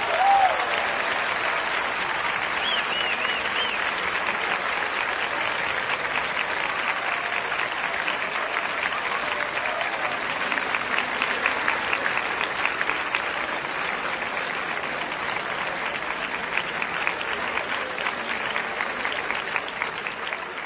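A crowd applauding steadily, with a few cheers in the first few seconds.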